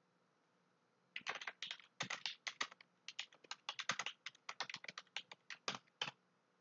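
Typing on a computer keyboard: a run of quick key clicks, several a second, that starts about a second in and stops near the end.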